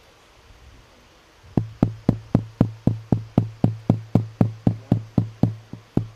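Steady, evenly spaced thumping through the microphone's sound system, about four knocks a second, starting about a second and a half in, each with a short low hum. It is a fault in the audio setup that the speaker notes is not working right.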